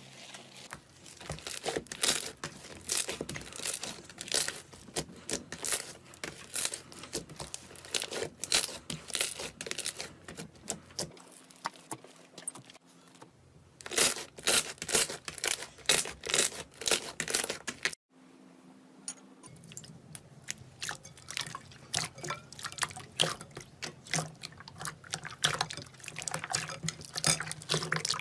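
Slime being squeezed, pressed and poked by hand: a dense run of wet clicks, pops and crackles, with the sound changing abruptly a few times.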